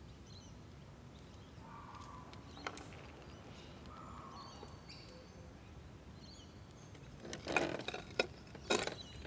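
Quiet outdoor background with faint bird chirps here and there. Near the end, two brief bursts of rustling handling noise as the camera is moved.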